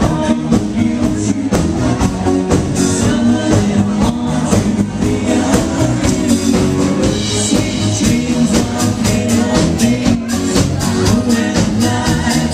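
Live band playing a dance tune with drums, electric guitar and keyboard, a steady beat throughout.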